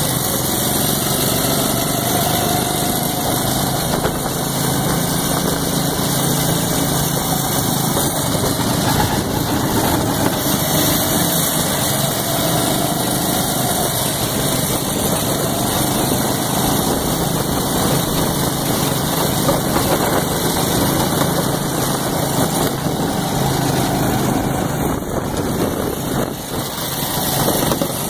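Small go-kart engines running as the karts drive round a track, heard from aboard one kart, the engine note wavering a little with the throttle under a steady rushing noise. The sound dips briefly near the end.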